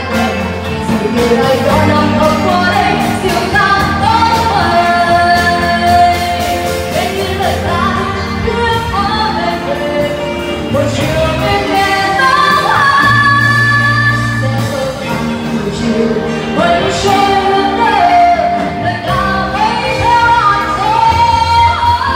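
A woman singing a pop song into a microphone, backed by a live band of electric guitars, keyboard and drum kit.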